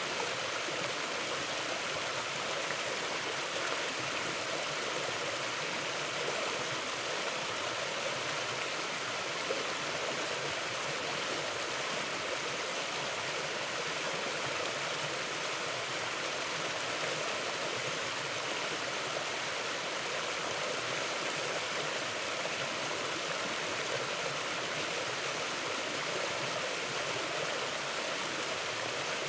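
Mountain river or forest stream flowing over rocks: a steady, even rush of water.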